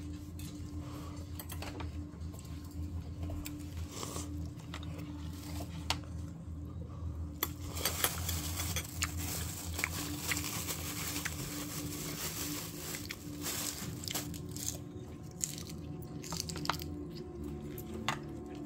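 People eating at a table: biting and chewing, with scattered sharp clicks that come thickest in the middle, over a steady low hum.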